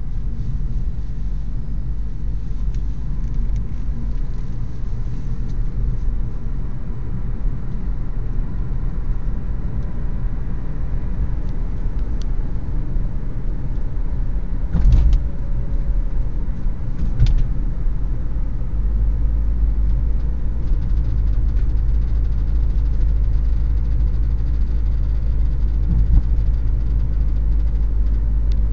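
2011 Toyota Prius on the move: a steady low rumble that gets heavier about two-thirds of the way through, with a few short sharp knocks, two close together about halfway. The knocks are the car's unexplained rattle.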